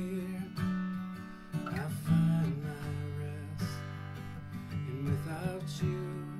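Guitar strumming slow chords while a man sings a soft worship ballad.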